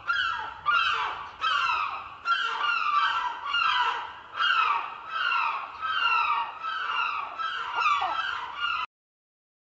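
Bird calls, a rapid series of short falling cries about one every three-quarters of a second, cutting off suddenly near the end.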